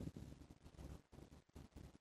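Faint breathing of a sleeping man in the pause between snores, with the tail of a louder snore cut off right at the start.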